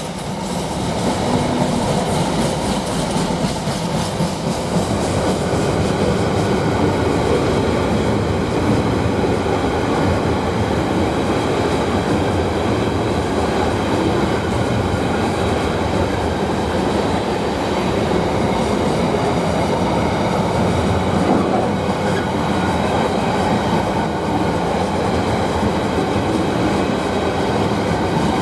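A long freight train's wagons rolling steadily past on the rails, wheels clattering over the track. The noise grows a little over the first few seconds and then holds.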